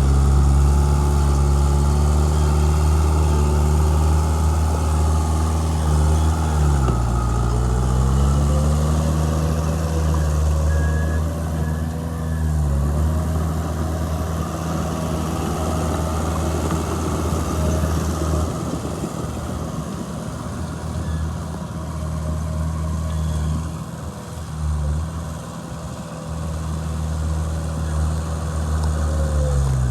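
Heavy diesel engine of earthmoving equipment running steadily, its pitch sagging briefly under load three times: about a quarter in, near the middle and at the end. Scattered knocks and clatter come through in the second half.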